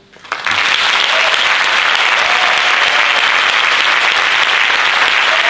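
Audience applause breaking out about half a second in and carrying on loud and steady.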